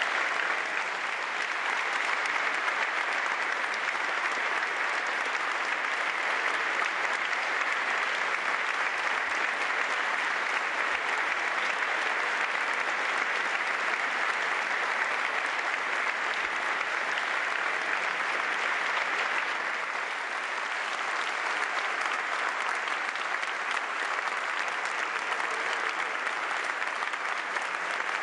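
Long, steady applause from a large audience, easing slightly about twenty seconds in.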